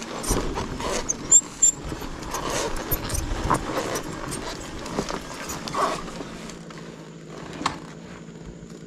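Dirt bike engine running at low speed under a steady hum, with irregular knocks and rattles as the bike rolls over a rough dirt trail; two sharp knocks stand out in the first two seconds, and it quietens toward the end.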